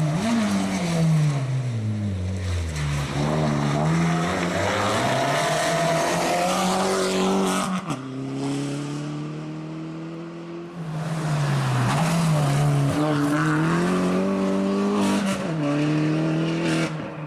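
Opel Corsa OPC rally car's turbocharged engine driven hard. The revs fall over the first few seconds, then climb through the gears, with a sharp break about eight seconds in as it shifts. They drop and climb again near the end.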